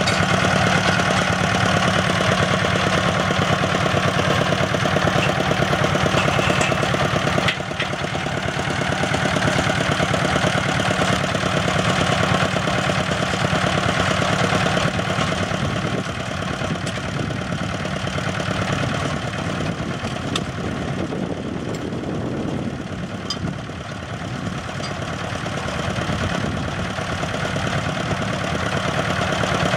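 Small diesel engine of a water-well drilling rig running steadily while drilling, its level dropping a little about a quarter of the way in and again past two-thirds.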